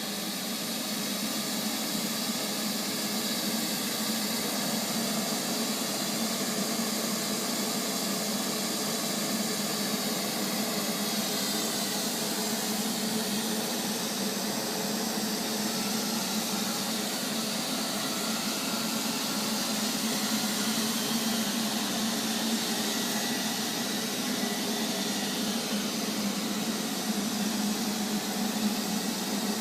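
Neato robotic vacuum cleaner running, a steady motor whir with a hiss of air.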